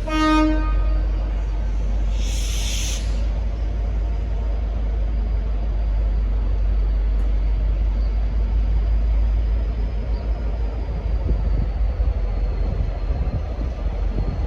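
Short horn toot on a single note at the start, then a brief burst of air hiss about two seconds in, over the steady low rumble of a V/Line N class diesel locomotive's engine.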